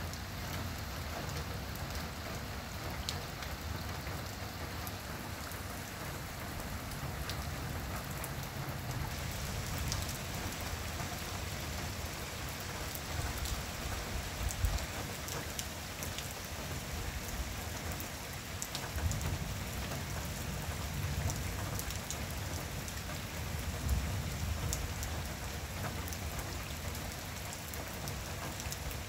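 Torrential rain pouring steadily onto a flooded street, with drops splashing on the water and hard surfaces. Low rumbles swell in and out now and then.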